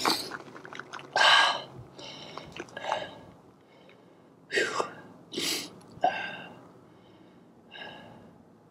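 A man breathing hard, about seven heavy, uneven breaths that grow weaker toward the end: he is out of breath from exertion.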